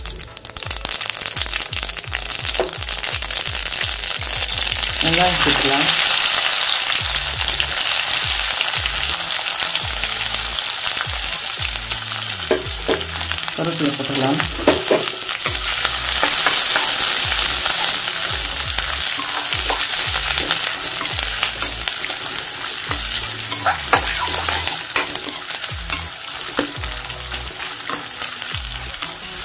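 Hot oil sizzling in a steel kadai, first around tempering mustard seeds, then louder a few seconds in as sliced onions and curry leaves fry in it. A spoon stirs and scrapes the onions against the pan now and then.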